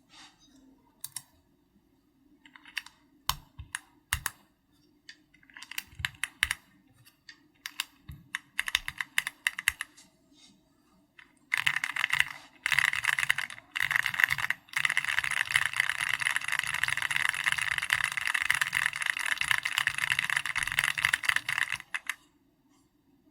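Typing on a custom mechanical keyboard with Keychron red linear switches in an SPM AL66B housing, with XVX comic-style keycaps. Scattered keystrokes come first, then about halfway through a fast, continuous run of typing that stops shortly before the end.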